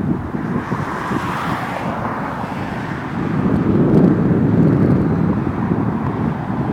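Jet airliner engine noise, a broad rumble that swells about three seconds in, with wind buffeting the microphone.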